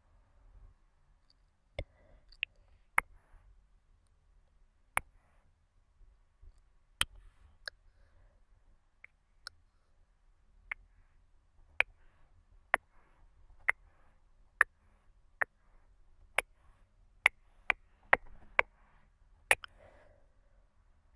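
Sharp mouth clicks close to the microphone, irregular, about one a second, coming quicker near the end.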